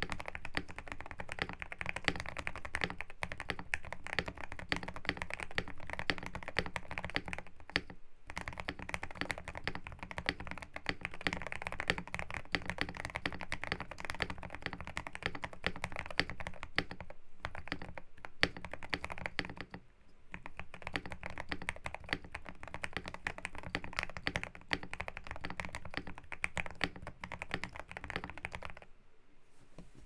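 Typing on a GMK67 mechanical keyboard with lubed JWK black linear switches, a polycarbonate plate, SA-profile keycaps, lubed Holee-modded stabilizers and a five-layer tape mod: a fast, continuous run of keystrokes with a few brief pauses, stopping just before the end.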